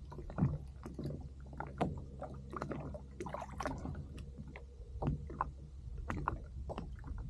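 Water slapping and lapping against a plastic kayak hull under a steady low rumble, with many scattered light knocks and clicks.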